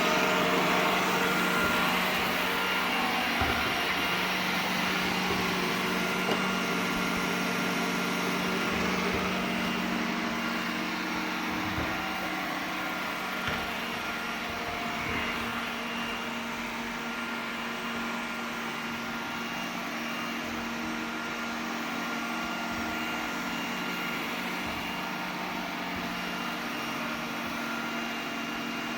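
iRobot Roomba 980 robot vacuum running, a steady motor and fan hum that grows fainter over the first half, with a few light knocks.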